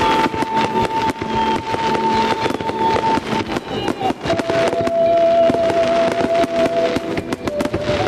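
Aerial fireworks shells bursting and crackling in quick succession, over music with long held notes that drop in pitch about halfway through.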